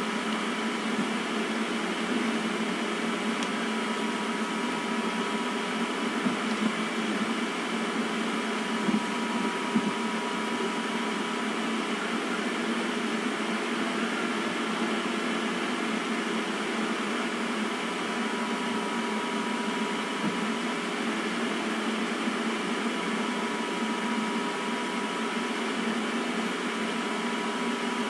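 Steady mechanical hum with a few faint clicks near the start.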